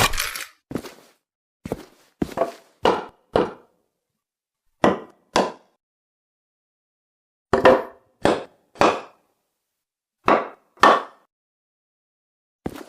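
Hammer blows for boarding up a barricade: sharp strikes in short groups of two or three, with silent pauses of a second or more between the groups.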